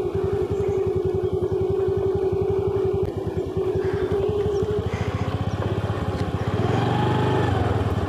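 Motorcycle engine running as the bike is ridden, holding a steady drone for the first few seconds, then a brief rise and fall in pitch near the end.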